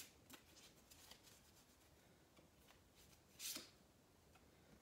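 Siddhartha Tarot cards being shuffled by hand, faintly: soft scattered ticks as the cards slip over one another. A louder single swish comes about three and a half seconds in as a card is slid out of the deck.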